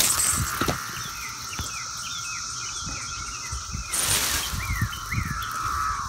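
Brood X periodical cicadas chorusing: a steady drone with a second, higher steady hiss above it. A bird repeats short falling chirps over it, and there is a brief rush of noise about four seconds in.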